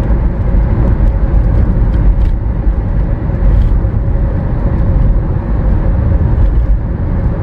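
Steady road and tyre rumble inside a car cabin at about 50 mph through a road tunnel, with a faint steady hum above it.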